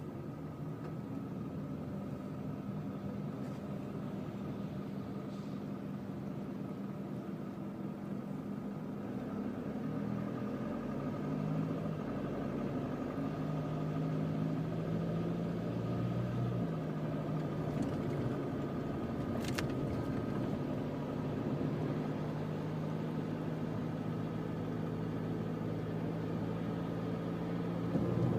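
Mitsubishi Delica D5 clean-diesel engine and road noise heard from inside the cabin while driving: a steady low drone whose engine note shifts pitch and grows a little louder about ten seconds in. A single sharp click sounds about two-thirds of the way through.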